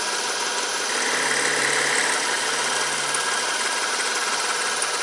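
Metal lathe running with its carriage on power feed, a steady mechanical hum. It grows a little louder from about a second in until about three seconds in.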